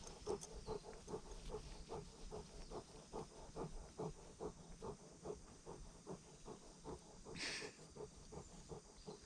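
A Bernese Mountain Dog panting steadily with its mouth open and tongue out, about four quick breaths a second. There is a brief higher hiss about seven and a half seconds in.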